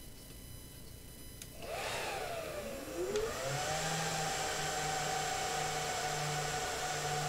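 Dell PowerEdge R210 II rack server powering on: about a second and a half in its cooling fans start up with a whine that rises and dips, then spin up again with a rising whine and settle into a steady whir. The fans are running at full speed, as they do at start-up before the BIOS takes control.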